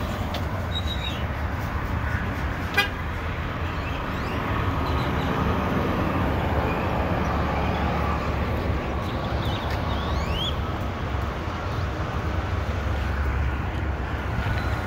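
Steady outdoor traffic and vehicle noise with a low rumble. A single sharp click comes about three seconds in.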